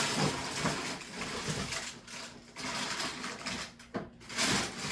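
Packaging being handled by hand, crinkling and rustling irregularly, with louder swells near the start, in the middle and near the end.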